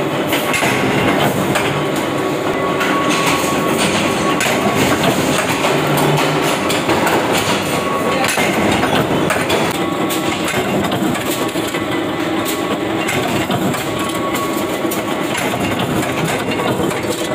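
Belt-driven flywheel power press running, with a steady, dense clatter as its ram stamps sheet-iron blanks into flower shapes.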